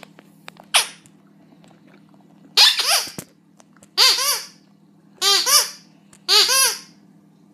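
A dog's squeaky toy squeaking as the dog bites it: a short squeak about a second in, then four louder squeaks about a second apart, each rising and falling in pitch.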